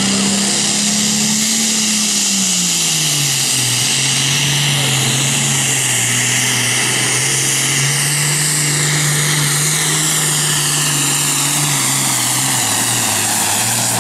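Case Super Farm pulling tractor's turbocharged diesel engine running hard under load as it pulls the sled, its pitch dropping about three seconds in and then holding steady, with a high whine above it.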